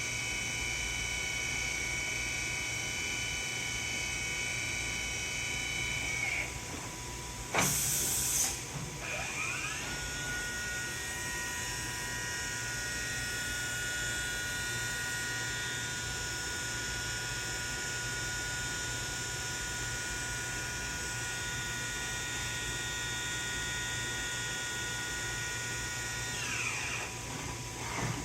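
Bulova BT380 CNC drilling and tapping machine's spindle running with a steady high whine, winding down about six seconds in. A short loud burst of noise follows, then the spindle spins back up to a lower, steady whine and winds down again near the end, over a constant low machine hum.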